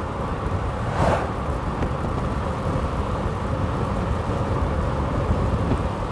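Steady low wind noise on the microphone, with a brief louder swell about a second in.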